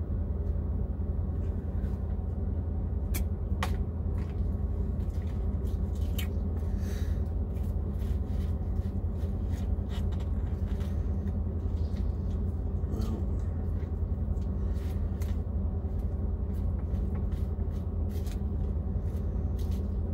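Steady low rumble of a parked semi-truck idling, heard inside the cab, with scattered small clicks and crinkles of a plastic fork, its wrapper and a clear plastic salad container.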